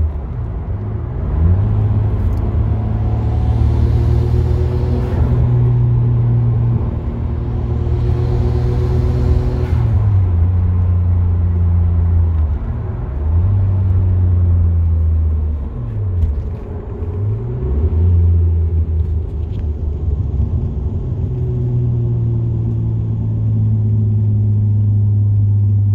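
Nissan Skyline GT-R's RB26DETT twin-turbo straight-six heard from inside the cabin, pulling through the gears on a back-road drive. Its note drops and climbs again at several gear changes. A rushing hiss swells twice in the first ten seconds.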